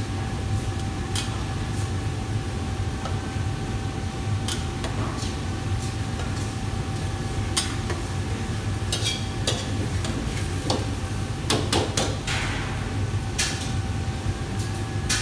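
A metal ladle stirring and scraping in a large steel wok, with scattered sharp clinks of metal on metal, more of them in the second half, over a steady low hum of kitchen equipment.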